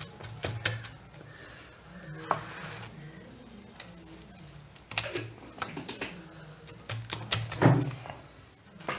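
Knife cutting through a baked pizza's crust on a board: a series of irregular sharp crunches and knocks, the loudest a little before the end.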